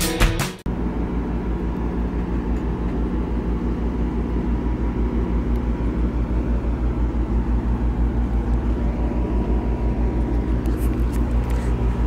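Steady low rumble of a running vehicle with a regular throb, about four pulses a second; a music track cuts off about half a second in.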